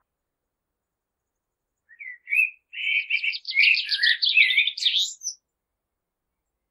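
Common blackbird singing one song phrase, starting about two seconds in: a few short notes that lead into a quick run of higher twittering notes, ending with a high squeaky note.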